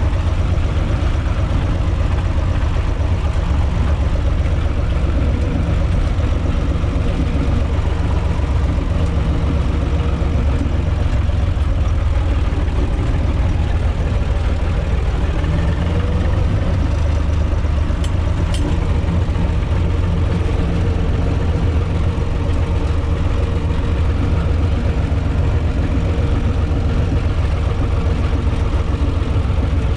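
UTB 445 tractor's four-cylinder diesel engine running steadily as the tractor drives along, heard from inside its cab.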